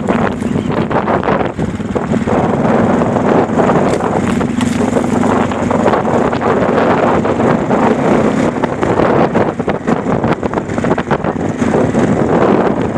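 Steady running noise of a moving car: a constant engine and road drone under a rushing wind noise over the microphone.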